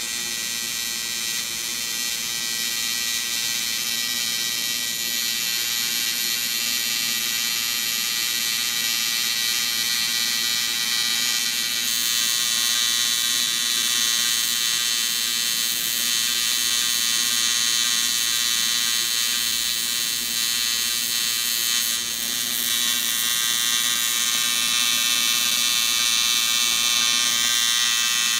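Electric arc welder buzzing steadily as a bead is run along a crack in a cast aluminum Kohler Courage engine crankcase. The buzz gets brighter and a little louder about twelve seconds in.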